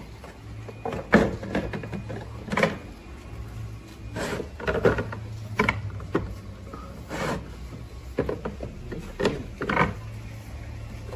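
Slit PVC pipe being pushed by hand onto the edge of a corrugated roof sheet: irregular plastic knocks, creaks and short scrapes as the pipe's slit grips and slides along the sheet.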